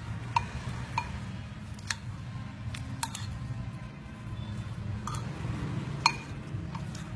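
Metal spoon clinking against a ceramic bowl while shredded sweet potato is stirred with batter powder, a handful of sharp clinks at irregular intervals, the loudest about six seconds in, over a steady low hum.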